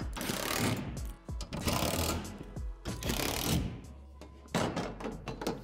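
Cordless drill driving screws through a steel wall support into a plastic shed wall panel, whirring in several short runs of about a second each, over background music.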